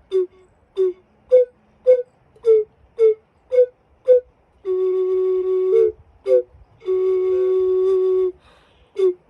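Ocarina playing a slow melody: short, detached notes about two a second stepping between two pitches, then two long held lower notes, then short notes again.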